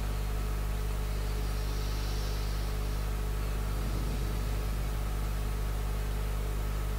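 Steady low electrical hum with a faint hiss from the microphone and sound system, unchanging throughout.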